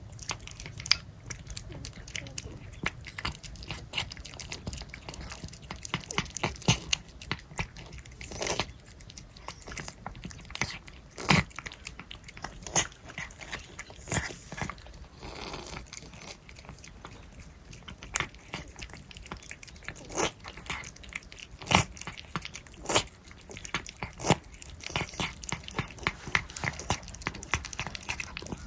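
Several cats eating churu lickable treats close to the microphone: a dense, irregular run of wet licking, smacking and chewing clicks.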